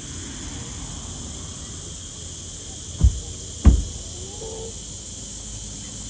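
Car driving on a hill road: a steady noise with a high hiss over it, broken near the middle by two dull thumps a little over half a second apart.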